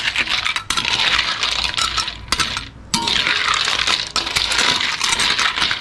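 Metal spoon stirring siput sedut snails in their shells through coconut-milk gravy in a wok: a busy run of small clicks and clinks as shells knock against each other, the spoon and the pan, easing off briefly a little before halfway.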